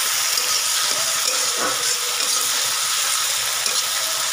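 Spice paste sizzling steadily in hot oil in a karai while a metal spatula stirs and scrapes it around the pan: the masala being fried down (koshano).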